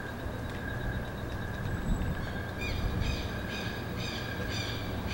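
Mobile phone ringing, starting about halfway through with a high electronic tone pulsing about twice a second, over a steady low rumble of night ambience.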